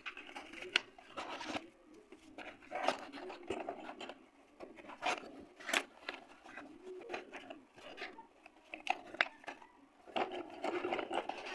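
Small cardboard packets of slate pencils being handled and shifted inside a cardboard carton: irregular light clicks and taps with cardboard scraping and rustling.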